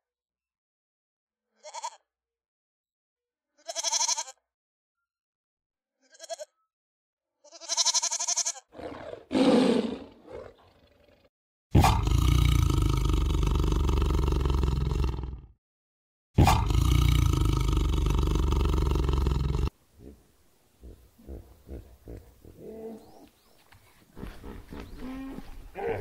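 Goat bleating in four short calls, then two long, loud tiger roars of about four and three seconds, followed by softer, repeated grunting near the end.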